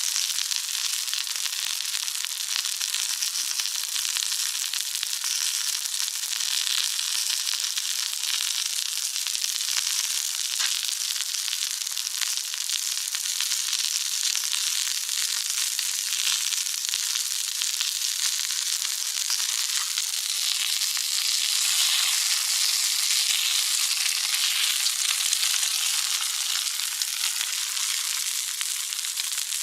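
Food sizzling in an iron frying pan: a steady, dense sizzle that grows a little louder about two-thirds of the way through.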